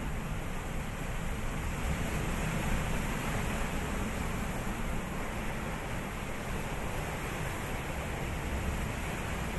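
Sea waves washing in a steady, even rush of noise.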